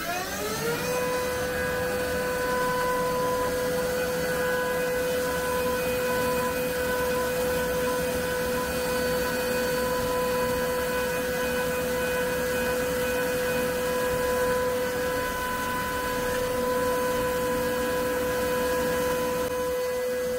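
Haas CNC mill's high-speed spindle machining a small spacer with the machine door open: a steady whine that climbs in pitch as the spindle spins up in the first second, holds through the cut, and stops just before the end.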